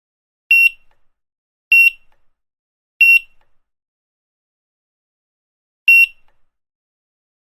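Supermarket checkout barcode scanner beeping four times: short, single-pitched beeps. Three come about a second and a quarter apart, and a fourth follows after a pause of nearly three seconds.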